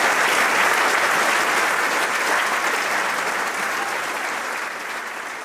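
Audience applause, an even patter of many hands clapping, that fades away over the last couple of seconds.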